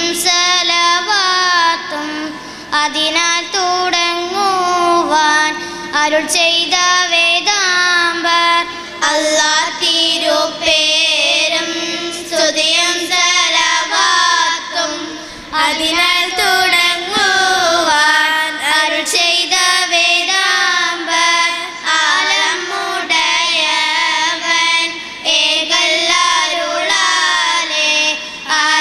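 A group of young girls singing a song together into microphones, the melody sliding and wavering between notes in continuous phrases with short breaks between them.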